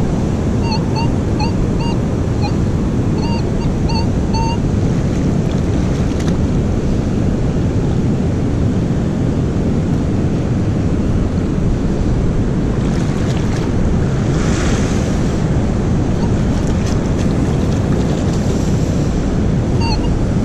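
Minelab Manticore metal detector giving a string of short, slightly rising beeps as it is swept back and forth over a buried target, during about the first four seconds and again at the very end. The signal reads high 70s up to 90s, a high-conductivity hit. Steady surf and wind noise on the microphone lie under it and are the loudest sound throughout.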